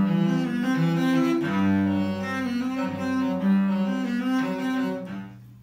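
Cello played with a bow: a run of sustained notes stepping up and down in pitch, the instrument's hole and rib cracks just repaired. The last note dies away near the end.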